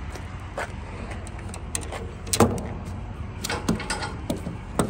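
Scattered clicks and knocks, one louder thump about two and a half seconds in, over the low steady rumble of a vehicle.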